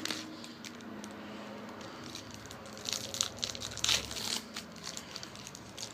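Crinkling plastic trading-card wrapper being handled, with a cluster of sharp crackles about three to four and a half seconds in.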